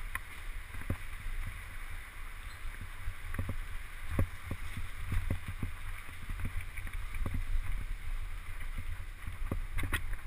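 Wind rumbling on an action camera's microphone while riding a mountain bike fast down a dirt forest trail, with frequent knocks and rattles from the bike jolting over bumps.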